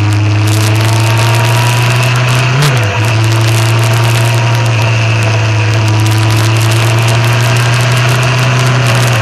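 Motorcycle engine running steadily under way, with a brief rise and fall in its note nearly three seconds in. Wind rushes over the microphone.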